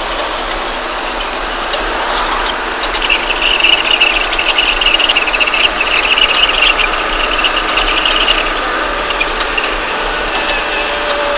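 A vehicle engine running steadily with a constant noisy rumble. A higher, shrill band of sound joins from about three seconds in and lasts about five seconds.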